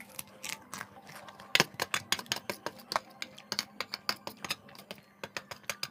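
A crisp white puffed cracker crunching as it is bitten and chewed close to the microphone: one loud crunch about one and a half seconds in, then a quick run of sharp crunches, about four a second.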